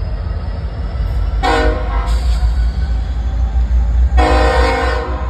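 Diesel locomotive's multi-chime air horn sounding a chord in short blasts: one about a second and a half in, broken briefly, and another about four seconds in. A steady low rumble runs underneath.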